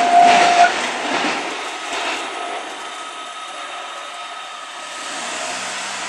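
The rolling noise of the Odoriko limited express dies away as the train leaves the level crossing. The crossing's warning signal and a steady tone cut off under a second in as the crossing clears. A low hum comes up near the end.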